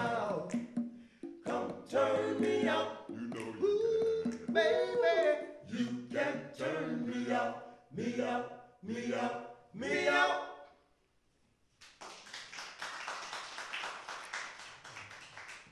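Male vocal group singing a cappella in close harmony, the song ending with a final held chord about eleven seconds in. After a second's pause, applause.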